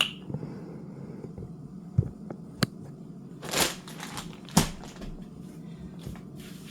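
Kitchen handling noises: a few sharp clicks and knocks of utensils and dishes, and a short rustling swish about three and a half seconds in, over a steady low hum.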